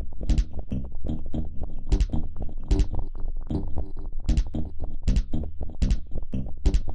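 Electronic percussion and notes played by a live-coded MIDI sequencer: short clicking hits in a steady repeating pattern, with a low thump about every three-quarters of a second and pitched tones underneath.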